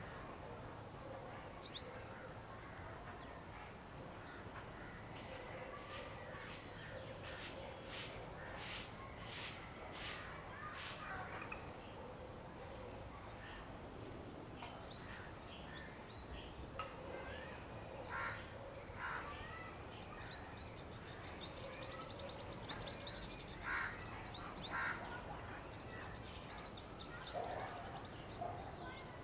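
Outdoor garden ambience: birds calling on and off over a steady high hum, with a run of sharp clicks about a third of the way through.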